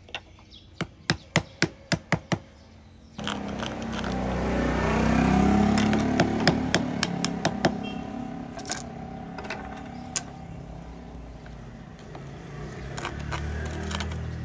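A quick run of about ten sharp knocks from bamboo parts being worked by hand. About three seconds in, a passing motor vehicle's engine rumble comes in suddenly, swells and slowly fades, and stray knocks and taps from the bamboo work continue over it.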